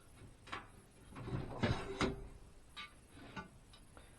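The extension support on a Craftsman sliding miter saw being slid and adjusted by hand: a sliding scrape about a second in, with two sharp clicks at its loudest, and a few lighter clicks and knocks before and after.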